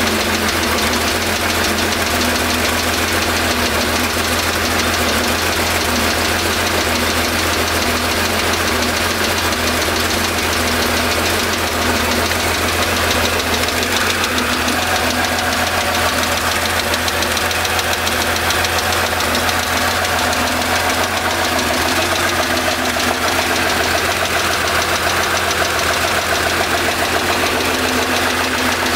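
Porsche 911 3.0-litre air-cooled flat-six idling steadily on a cold start, with a knocking that keeps time with the rpm and that the owner traced to a tapping in cylinder 5. The tone of the engine changes about halfway through.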